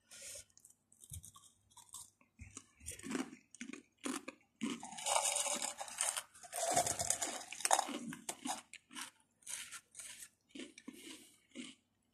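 Mamee Ghost Chili Pepper black potato crisps being crunched and chewed in the mouth, in irregular crunches that grow denser and louder in the middle.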